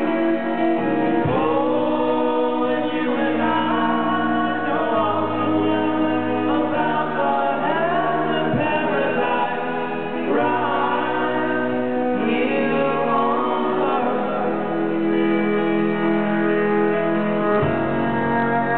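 Live acoustic band performing a slow song: several voices singing in harmony over acoustic guitar, banjo, upright bass and cello.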